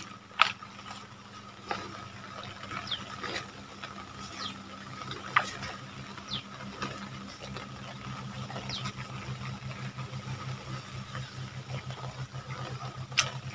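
A steady low engine-like hum over flowing river water, with scattered short clicks and small splashes; the hum grows a little louder and pulses faster in the second half.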